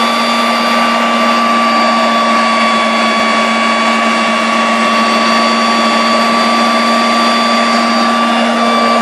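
Jet bike's jet engine running at a steady speed: a loud whine of steady high tones over a rushing hiss.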